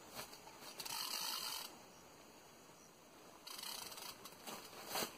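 Spinning fishing reel being cranked under the load of a hooked fish: a faint mechanical whirr in two spells, about a second long near the start and again over the last second and a half, with a sharp knock near the end.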